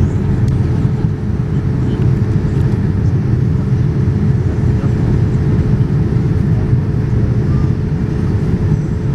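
Steady cabin noise of a Boeing 787-9 in flight, heard inside the cabin: a dense low rumble of its Rolls-Royce Trent 1000 engines and the airflow, with a faint steady hum above it.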